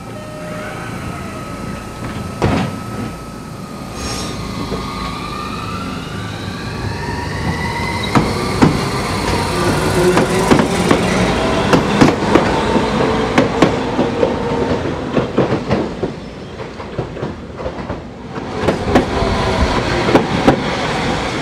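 Tokyu Setagaya Line 300 series tram cars moving through the station, their electric motors whining in tones that fall and then rise in pitch. Over the rumble of the running gear come many sharp clicks of wheels over the rail as a car passes close by.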